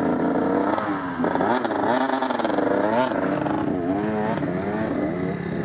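Dirt bike engines revving up and down over and over, with the throttle blipped on and off, at times more than one bike at once.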